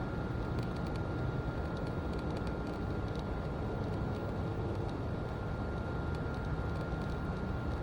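Steady outdoor background rumble with a faint, steady high whine.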